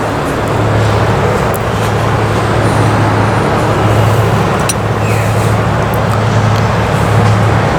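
Steady city traffic noise: a continuous rumble of passing road vehicles with a low steady hum underneath and a few faint ticks.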